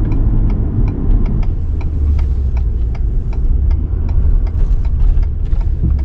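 Low rumble of a pickup truck's engine and tyres heard inside the cab as it slows and turns off the highway onto a gravel lot, with a turn signal ticking steadily about three times a second.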